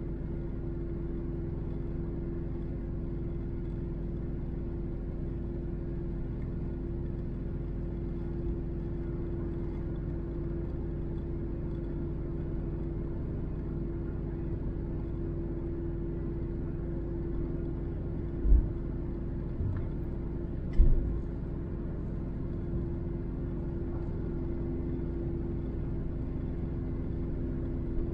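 Car driving at speed on an expressway, heard from inside the cabin: a steady drone of engine and road noise with a held low hum. A few short low thumps come about two-thirds of the way in.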